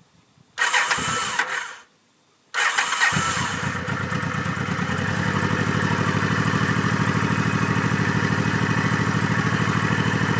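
Honda Shadow V-twin motorcycle engine cold-started on its electric starter. A first crank of about a second does not catch; a second crank catches, and the engine settles into a steady, evenly pulsing idle while it warms up on choke.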